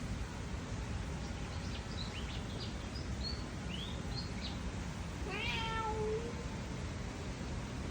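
A cat gives a single meow about five seconds in, lasting under a second. A few faint, short, high chirps come before it.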